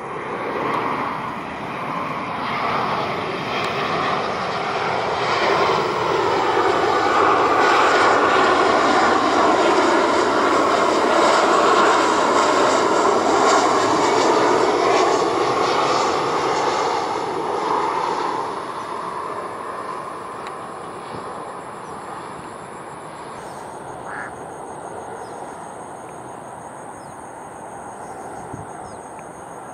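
Boeing 737-900ER on final approach flying past, its CFM56-7B turbofan engines building to a loud rush with a whine that falls in pitch as it passes, then fading away over the last ten seconds or so.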